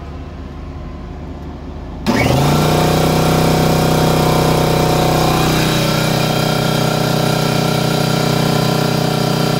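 A Husky electric air compressor kicks on about two seconds in and then runs loudly and steadily as it pumps up its tank. It is drawing its starting surge through a 12-volt inverter.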